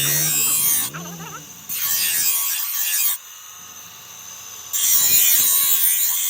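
A person's voice briefly at the start, then two long rasping scrapes, each lasting over a second, about three seconds apart.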